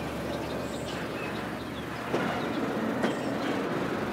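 Train sound effect: a locomotive running along the rails, wheels clacking over the rail joints, with a steady rumble and a few sharp clicks.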